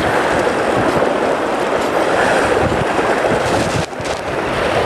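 Steady rushing noise of wind buffeting the microphone and sea waves washing against shore rocks, easing briefly about four seconds in.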